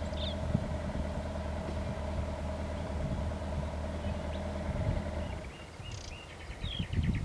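Engine running with a steady low hum and a held tone, which stops about five and a half seconds in. Birds chirp near the end.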